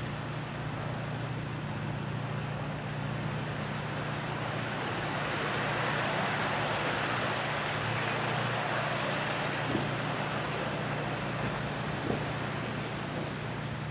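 Floodwater rushing in a steady rush that swells a little in the middle, over a steady low hum.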